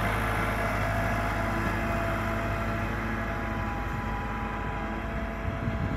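Massey Ferguson 385 tractor's diesel engine running steadily under load while pulling a laser land leveler through dry soil, growing slightly quieter as it moves away.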